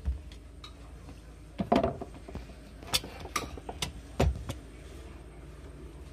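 Handling noise of a phone camera being picked up and propped in place: scattered taps, knocks and rubs, with louder knocks about two and four seconds in, over a steady low hum.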